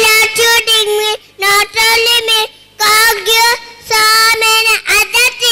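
A little girl singing solo into a handheld microphone, without accompaniment: a run of short, steady notes broken by brief pauses.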